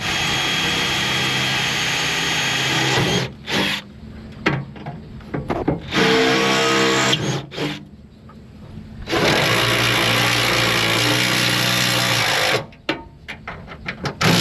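Power drill running in three bursts, the first and last about three seconds long and the middle one shorter, with short knocks in the pauses between them.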